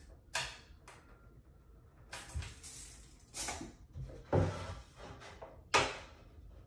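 Pine boards being handled on a shelf under construction: about five short knocks and scrapes as a divider board is moved and set upright on the shelf top. The loudest is a dull thump a little past the middle.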